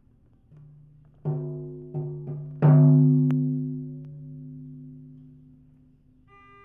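A low-pitched struck percussion instrument played for a sound bath: a few quick strokes on one note, the hardest about two and a half seconds in, then its note rings on and slowly fades. A brief higher ringing note comes near the end.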